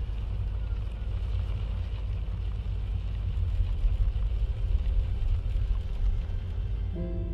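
Steady low rumble of a pickup truck driving along a road, heard from inside the cab. Music with held notes comes in near the end.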